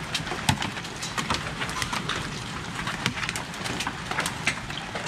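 Hail pelting a wooden deck: a dense, irregular clatter of sharp ticks, several a second, over a steady hiss of falling rain.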